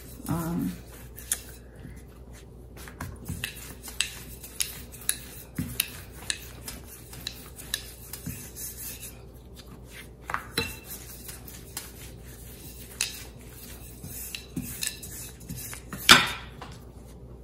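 Thin wooden rolling pin rolling out dough on a silicone baking mat: soft rubbing with scattered light clicks and knocks as the pin is pressed, lifted and set down, the loudest knock about sixteen seconds in.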